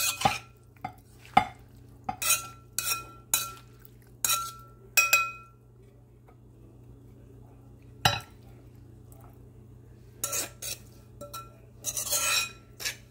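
Metal spoon clinking and scraping against an aluminium bowl while mixing pounded long bean salad, about seven ringing clinks in the first five seconds. A single knock about eight seconds in, then more clinks and a short scrape near the end as the salad is spooned out of the bowl onto a glass plate.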